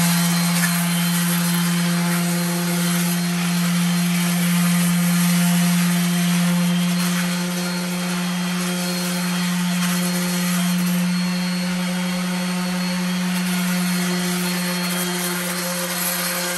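Makita hand sander with a 60-grit disc running at a steady speed against weathered concrete: a constant motor hum over gritty scraping. The concrete is so worn that the sanding chips it.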